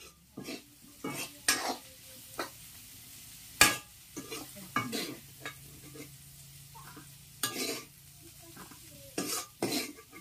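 Metal ladle scraping and clanking against a steel wok while fish and greens are stir-fried, with a low sizzle underneath. The strokes come irregularly, the loudest a sharp clank about three and a half seconds in.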